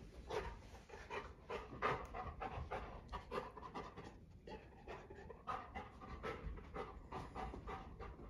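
Golden retriever panting quickly and steadily, about three or four breaths a second, while it searches the room with its nose down.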